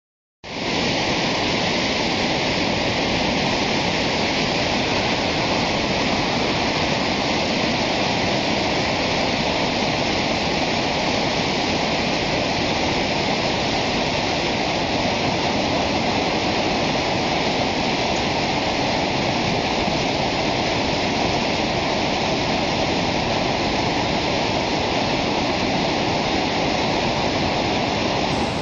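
Rushing floodwater: a steady, unbroken rush of fast-moving water that sets in about half a second in and holds level throughout.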